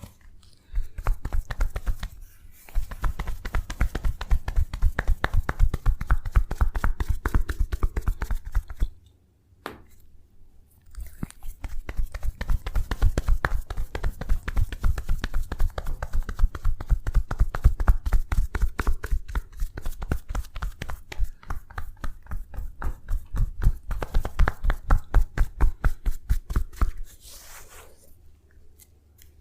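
Rapid, even hand tapping on the body in a percussive massage, many quick thuds a second. It comes in two long runs with a short break about nine seconds in, and fades near the end.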